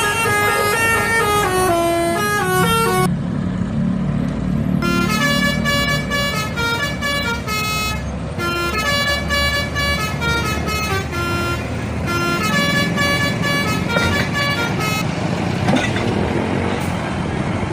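Bus telolet horn, a set of air horns playing a stepped multi-note melody in several phrases with short breaks, over a running bus engine. The tune stops about 15 seconds in, leaving engine and traffic noise.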